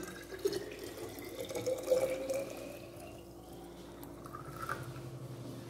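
Boiled, filtered water poured in a steady stream into a stainless steel water bottle, the tone of the filling bottle rising in pitch.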